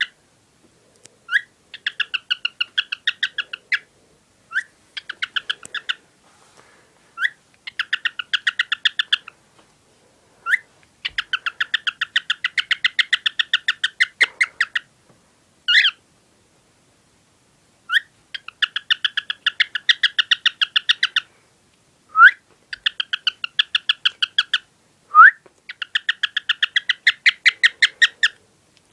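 Pet cockatiel singing: phrases of fast, clipped chirps, about ten a second, each run lasting one to three seconds with short pauses between, several opened by a single rising whistle.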